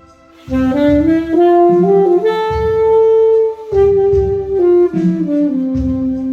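Alto saxophone played live over a recorded backing track: after about half a second, a phrase climbs in steps to a held high note, then steps back down and settles on a long low note, with low pulses from the backing underneath.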